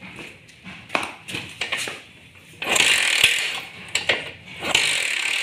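A TVS XL100 moped being kicked over, its start mechanism ratcheting and clattering in two spells after a few sharp clicks. The engine is being turned over to see whether the magneto's charging line lights a test lamp.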